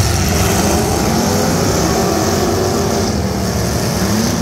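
Demolition derby cars' engines running and revving together, a loud steady drone whose pitch wavers up and down.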